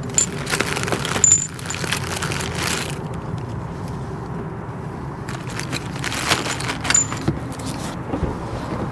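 Small plastic parts bags crinkling and the loose metal clips and cotter pins inside them jingling as they are handled, with rustling in a cardboard box near the end.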